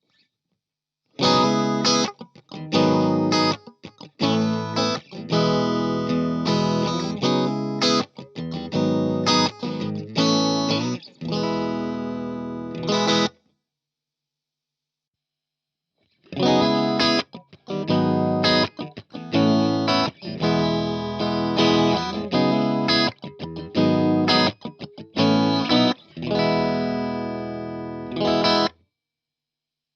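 Electric guitar played through a Strymon Iridium amp and cab modeller, giving a lightly driven amp tone. It plays two chordal phrases, each about twelve seconds long and each ending on a held, ringing chord, with a silence of about three seconds between them.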